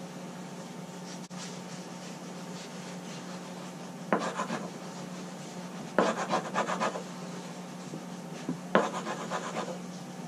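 Sharpened wooden scraper scraping solvent-softened traction-mat glue off a jet ski's gel-coat deck, in three short bouts of quick strokes, over a steady low hum.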